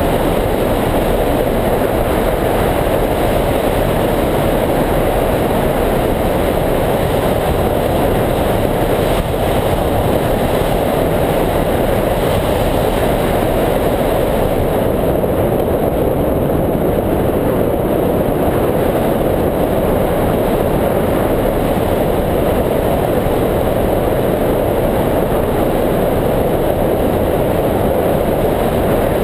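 Steady, loud wind rushing over the microphone of a camera mounted on a hang glider's wing in flight.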